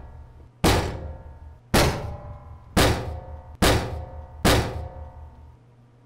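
Five dull thunks against a wooden door, roughly one a second, each with a short ringing decay.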